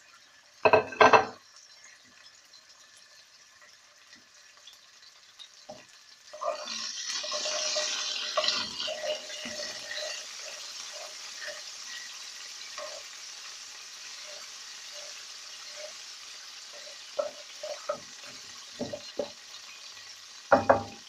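Garlic, chili flakes and anchovies frying in oil in a non-stick wok, stirred with a wooden spatula. The sizzle is faint at first, flares up loudly about six seconds in and then settles to a steady fry. The spatula scrapes and taps the pan throughout, and there are a couple of sharp knocks about a second in.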